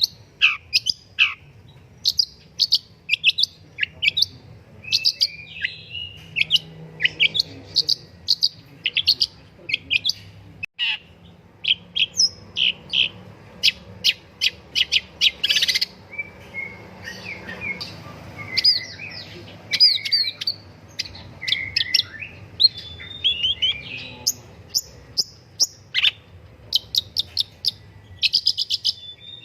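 Long-tailed shrike singing in full voice: a fast, varied string of short sharp chirps, quick trills and downward-sliding notes, with a brief break about ten seconds in.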